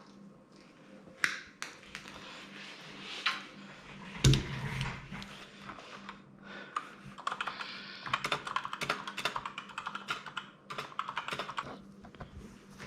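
Small sharp clicks and taps, like small parts and tools being handled on a workbench, with one heavier knock about four seconds in and a quick run of clicks through the second half.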